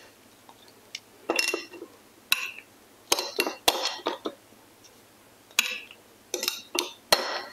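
Metal tongs clinking against a glass plate and a glass jar as lime wedges are picked up and dropped into the jar. The clinks and taps are short and come at uneven intervals, about a dozen in all.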